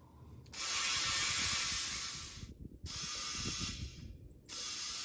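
A spray nozzle hisses in three bursts, each switched on and off abruptly, the first the loudest and longest, while spilled tire sealant is cleaned off the wheel.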